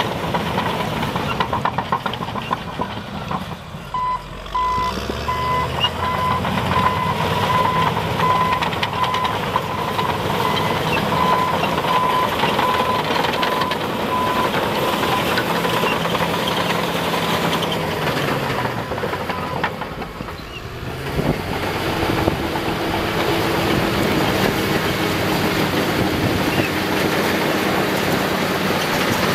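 Caterpillar D6R LGP crawler dozer at work: its diesel engine runs steadily, picking up revs a few seconds in and dipping briefly about two-thirds of the way through. Its reversing alarm beeps about twice a second for roughly ten seconds while it backs up. Near the end it pushes a load of dirt forward under power.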